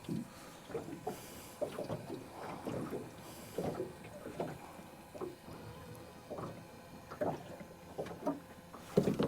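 Water lapping and slapping against the hull of a small boat, in irregular soft knocks several times a second.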